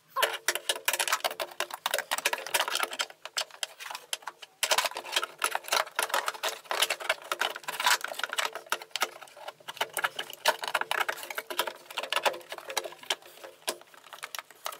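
Rapid, dense clicking and clattering of hand tools and metal parts as a windscreen wiper motor is fitted back in.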